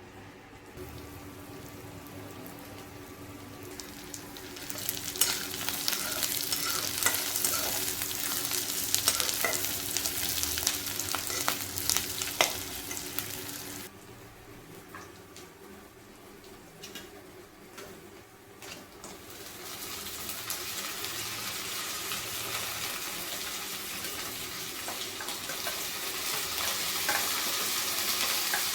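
Desi chicken sizzling as it fries in hot oil in a pan, with sharp clicks of a utensil stirring it. The sizzle grows louder about five seconds in, drops away suddenly near the middle, and builds up again a few seconds later.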